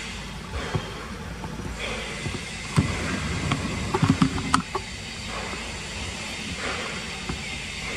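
Macaques wading through a shallow muddy puddle: a cluster of small splashes and knocks in the middle, over a steady outdoor hiss.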